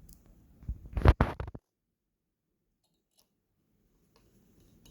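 A handful of sharp clicks and knocks of small hard parts being handled on the opened laptop, bunched about a second in, then near silence.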